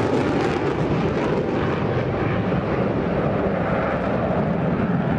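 Jet engine noise of an F-14 Tomcat fighter flying past: a steady rushing sound whose pitch slowly drops and dulls as the jet goes by.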